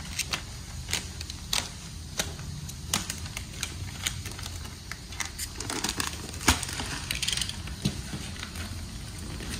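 Clear plastic shrink-wrap being slit with a small blade and peeled off a cardboard box, crinkling and tearing in irregular snaps and rustles.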